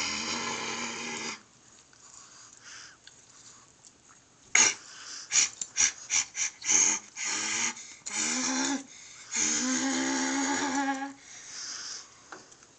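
Small dog growling and snarling in bouts: a long raspy growl at the start, a quick run of short snarls about five seconds in, then two longer growls.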